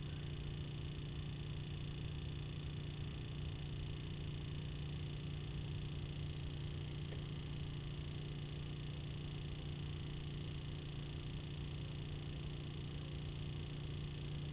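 A steady low hum over an even background hiss, with no distinct events.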